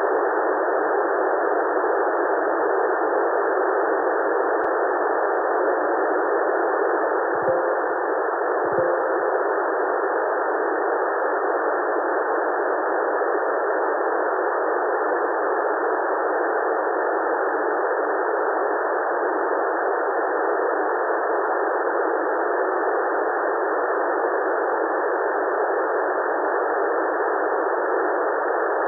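Steady radio receiver static from an Airspy Mini software-defined radio tuned to the ISS downlink on 145.800 MHz: only band-limited hiss, with no transmission coming through. Two faint short blips break it about eight and nine seconds in.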